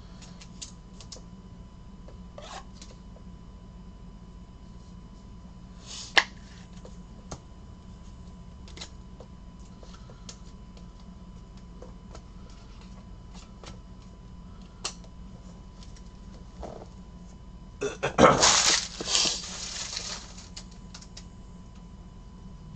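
Trading cards being handled and flipped through on a table: scattered light clicks and taps, a sharp click about six seconds in, and a louder rustle of cards lasting about two seconds near the end, over a faint steady electrical hum.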